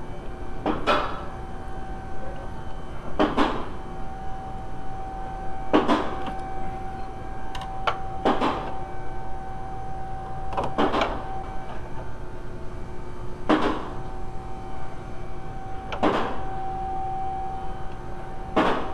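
Ratchet wrench clicking in short bursts, about one every two and a half seconds, eight in all, as the alternator's clutch pulley is worked loose, over a faint steady hum.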